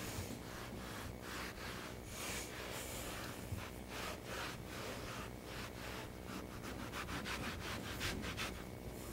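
Hands rubbing and pressing jute carpet padding down onto a car floor: a run of scratchy rubbing strokes that come quicker near the end, over a faint steady hum.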